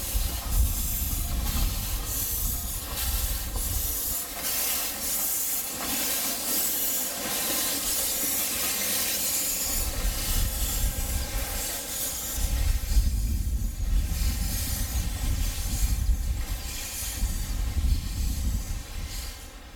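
Narrow-gauge steam locomotive blowing off steam, a steady rushing hiss with a low rumble underneath that comes and goes.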